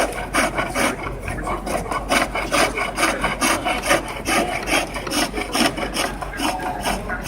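Wood being turned on a foot-powered lathe: a hand-held turning tool scrapes into the spinning wood in a quick, even rhythm of several cuts a second.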